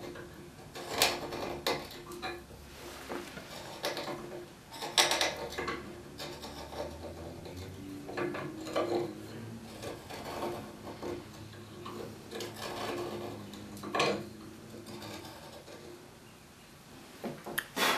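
Knife blade paring and scraping wood in irregular short strokes, cutting back the raw tenon end left showing where the foot rest enters the chair leg.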